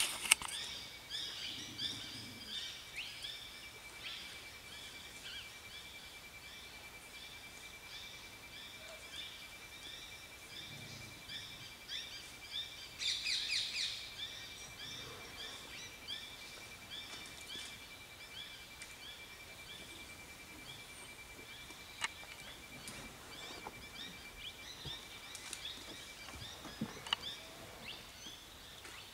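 Forest ambience: small birds chirping over and over, with a steady thin high tone running underneath. About 13 seconds in there is a louder, rapid burst of calls, and there are two sharp clicks later on.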